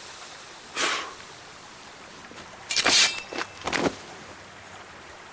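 Film sound effects of an arrow whooshing through the air and knife blades slashing at it. One whoosh comes about a second in, then louder quick swishes around three seconds in and another just before four seconds.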